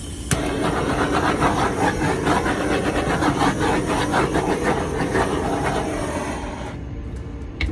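Handheld torch clicking on and hissing steadily as it is passed over wet acrylic pouring paint. The flame cuts out about six and a half seconds in.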